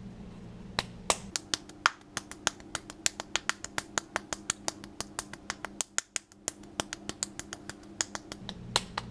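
Cupped palm slapping a lump of soft clay over and over, about four to five sharp slaps a second, as the clay is beaten into a ball for a pinch pot.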